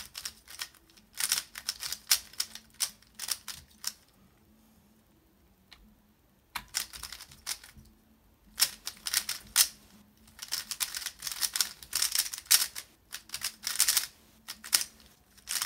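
Rapid plastic clicking and clacking of a YuXin Little Magic 3x3 speedcube being turned in quick runs of finger-trick moves. There is a pause of about two seconds near the middle, then fast turning resumes.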